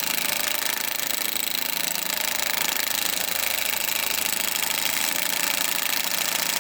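Cordless Snap-on impact wrench hammering continuously under load, pulling a new wheel stud into the hub.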